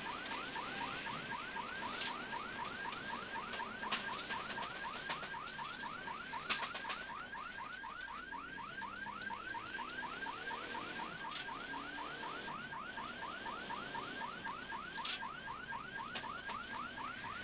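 Car-mounted siren yelping: a fast, even series of short rising whoops, about five a second, over the running car, with a few short knocks.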